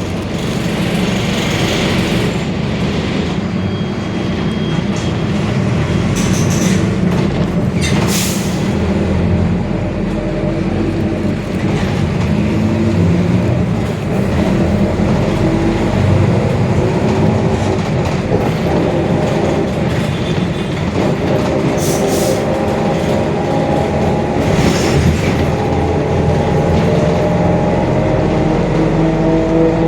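Mercedes-Benz OF-1721 Bluetec 5 bus on the move, its diesel engine running with the differential growling, the fault the recording is made to show. A whine climbs in pitch over roughly the last ten seconds as the bus gathers speed, with a few short knocks along the way.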